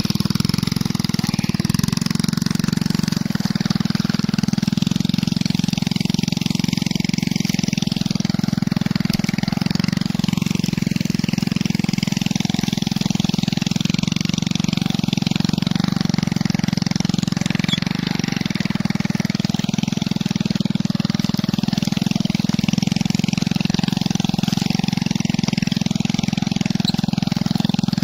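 Small stripped-down motorbike's single-cylinder engine running steadily under load as it tows a plough through dry field soil.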